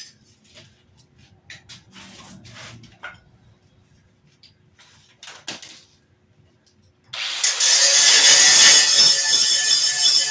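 A few faint clicks and knocks of tool handling, then about seven seconds in an angle grinder starts and runs loud and steady, grinding steel at the Jeep CJ7's body mount.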